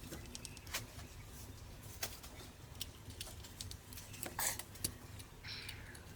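Faint, scattered small clicks and taps of a screwdriver and plastic and metal parts being handled while a DSLR camera body is taken apart, over a low hum, with a short squeak near the end.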